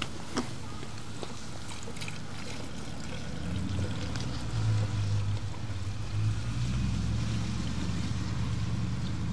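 Leftover petrol trickling and pouring out of a generator's fuel tank through a hose into a container, with a couple of clicks at the start. About three and a half seconds in, a steady low rumble sets in and grows louder.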